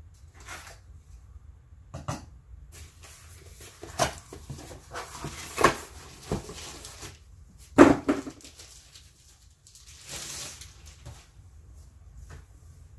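Packaging being pulled and torn off a graded comic slab: irregular rustling, scraping and light knocks, with one sharp knock about eight seconds in.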